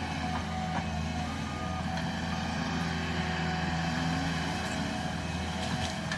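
Caterpillar skid steer's engine running steadily at working speed, its pitch wavering slightly as it works.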